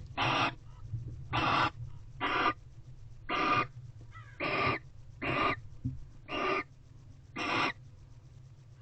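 Barn owl giving a series of short, rasping hiss calls, about one a second, eight in all, stopping near the end; a steady low hum runs underneath.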